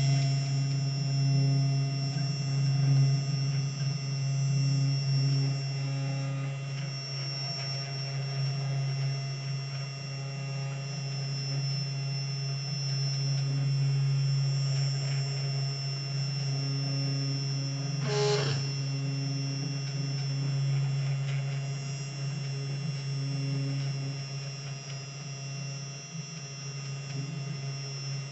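Sainsmart Genmitsu desktop CNC router cutting: the spindle motor hums steadily while the stepper motors whine in short stretches as the axes move. One sharp click about two-thirds of the way through.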